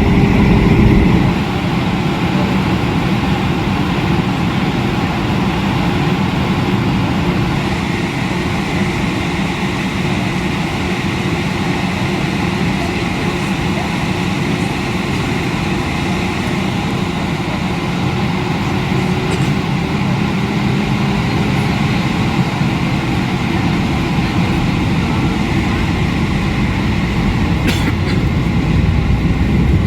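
Steady rumble and hiss inside the cabin of an Airbus A320 with its engines running, with a single short click near the end.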